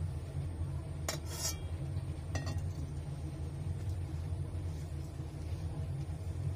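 Steel pot clinking against a steel plate as jaggery syrup is poured onto flour: two knocks about a second in and a third a little later. A steady low hum runs underneath.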